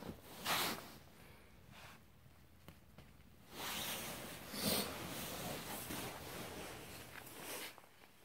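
Turkish Angora cat sniffing and snuffling at a fabric catnip toy. There is a short sniff about half a second in, then from about three and a half seconds in some four seconds of snuffling and soft rustling as it grabs and bites the toy.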